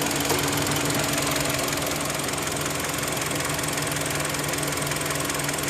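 2010 Kia Rondo engine running steadily with a continuous ticking, which the owner takes as a sign that the engine will soon blow up.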